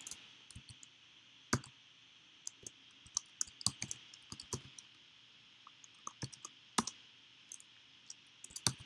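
Computer keyboard being typed on: irregular key clicks in short runs, with a few single louder key presses and a quick flurry near the end.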